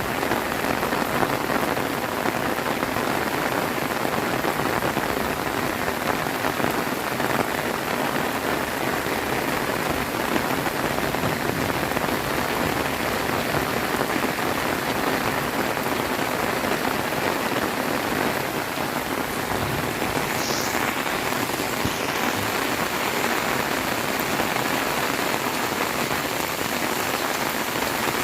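Heavy rain pouring down, a dense, steady patter of drops hitting surfaces without let-up.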